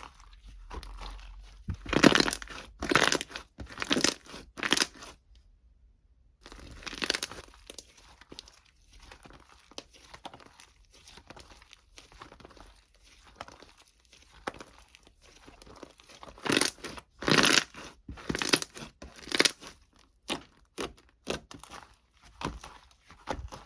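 Crinkling and tearing sounds in irregular clusters of sharp rustles, loudest a couple of seconds in and again past the middle, with a brief pause about five seconds in.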